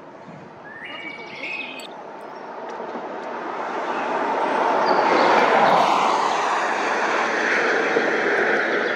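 A vehicle passing on the highway: tyre and engine noise swells over a few seconds to its loudest about five and a half seconds in, then stays fairly loud. A bird chirps briefly about a second in.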